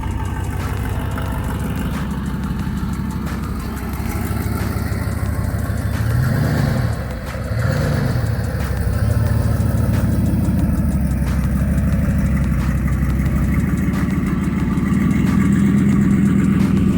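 Pickup truck engine idling steadily, with two short revs about six and eight seconds in.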